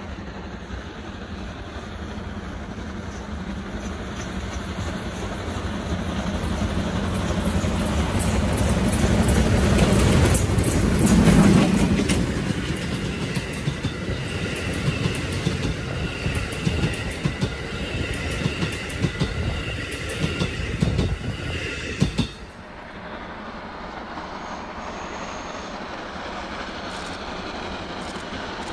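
D51 steam locomotive approaching and passing close under load, loudest about eleven seconds in. Its passenger coaches then roll by with rapid clicking from the wheels and a high, steady wheel squeal. About 22 seconds in the sound cuts abruptly to a quieter, steady sound of the train in the distance.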